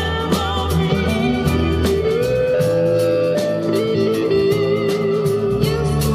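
Live rock band playing loudly: a guitar lead with bent, wavering notes over bass and drums.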